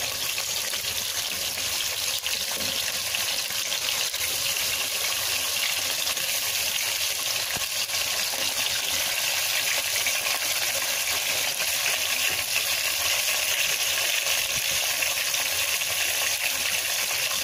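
Raw chicken pieces frying in hot oil just after going into the pot: a steady sizzling hiss with fine crackling throughout.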